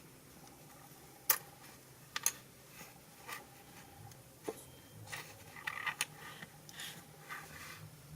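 Irregular small clicks and taps of scale-model parts being handled and fitted together during assembly of the crank and connecting-rod mechanism. The loudest click comes a little over a second in, with a quick double click a second later.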